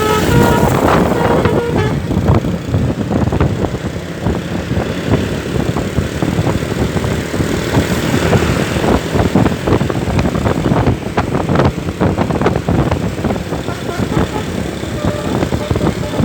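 Bus traffic running loudly past, with the steady multi-note tones of a basuri telolet bus horn at the very start and again near the end.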